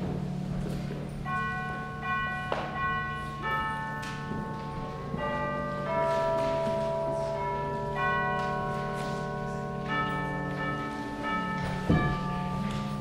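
Church organ playing a slow melody of held notes over a sustained low bass, with a bell-like tone. A sharp knock sounds near the end.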